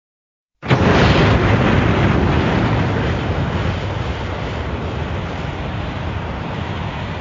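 Monster-film sound effect: after silence, a loud, dense rushing blast starts suddenly about half a second in and carries on, fading only slowly.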